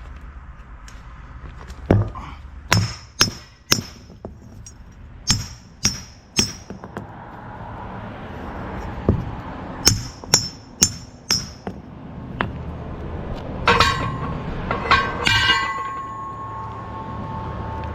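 Steel disc-harrow gang parts clinking and being tapped together in quick groups of three or four strikes. Near the end a few harder strikes leave a steel part ringing.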